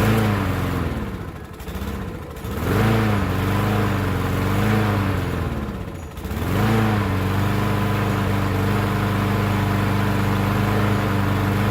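Lawn mower's small engine running, its speed surging up and down and sagging almost to a stall about six seconds in, then picking up and running steadily.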